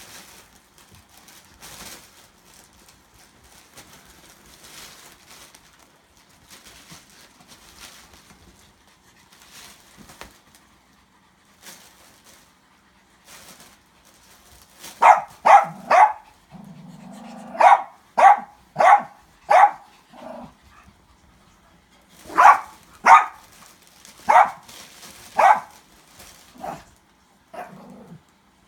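Small dogs yapping in play: sharp, high yaps in quick runs of three or four, starting about halfway through and thinning out to single yaps near the end. Before that there is only faint scuffling.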